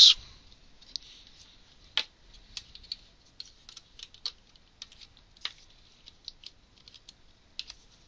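Light, irregular clicks and taps of a Raspberry Pi circuit board assembly being handled and pressed down into a plastic case's snap-in fixing lugs, with a couple of sharper clicks about two and five seconds in.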